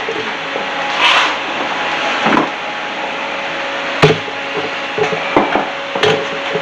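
A few separate knocks and rubbing sounds of parts being handled, the sharpest about four seconds in, over a steady background hiss with a faint hum.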